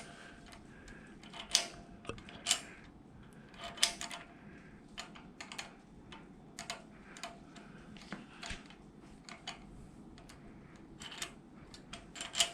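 Irregular light metallic clicks and taps, a few of them ringing briefly, from hand tools on a small-block Chevy's valvetrain as the pushrod guide plate bolts are snugged down a little at a time.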